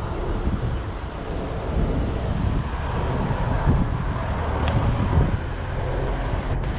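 Wind buffeting the microphone over a steady rumble of road traffic.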